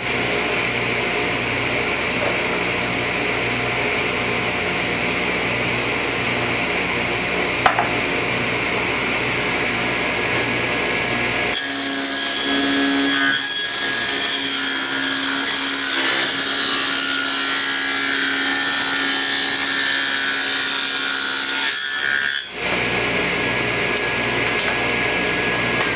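Table saw running and cutting a shallow groove along the edges of pine panels, a steady loud saw noise; the sound changes about twelve seconds in as another panel is fed through.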